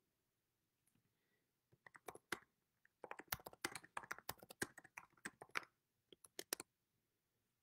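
Typing on a computer keyboard: a quick, uneven run of key clicks starting about two seconds in and stopping shortly before the end.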